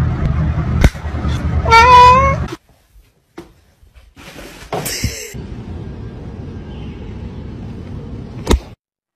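A cat gives one short, wavering meow about two seconds in, over a low rumbling, with a sharp click just before it. After a short gap comes a stretch of low steady noise with a few clicks.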